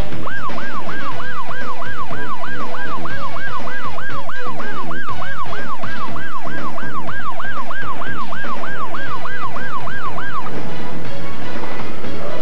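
Police car siren in a fast yelp, its pitch rising and falling about three times a second, cutting off about ten seconds in.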